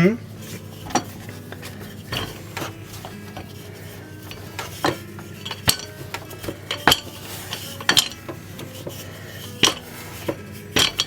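Scattered light knocks and clicks of kitchen utensils on a wooden pastry board as pastry lids are rolled out and cut.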